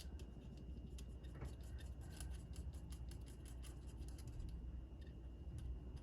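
Faint scratching and a quick run of small ticks as an acrylic paint pen tip works over a hard, chalky ResinCrete casting, thickest in the middle seconds.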